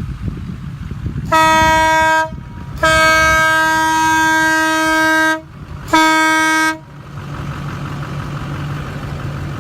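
12 V single-trumpet electric air horn, sounding loud in three blasts: one of about a second, a long one of about two and a half seconds, then another short one. Each blast holds one steady pitch and starts and stops abruptly.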